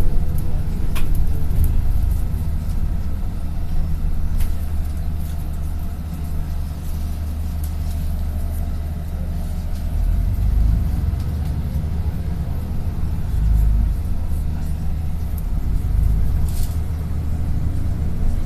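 Steady low rumble of a bus's engine and running gear heard from inside the passenger cabin, with a few light clicks.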